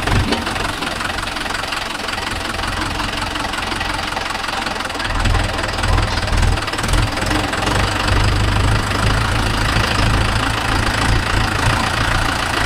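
Diesel tractor engine running, its low rumble growing stronger about five seconds in.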